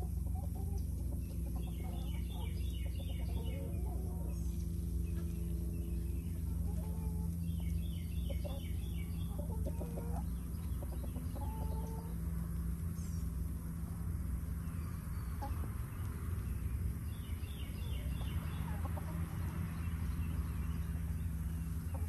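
Chickens clucking, while a songbird repeats a short, quick phrase of high notes three times, over a steady low hum.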